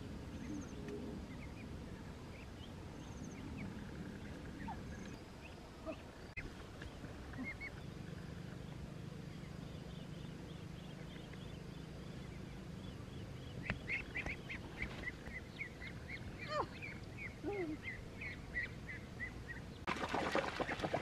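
Domestic ducks calling in a quick run of short, repeated calls. Near the end, loud splashing in shallow water breaks in.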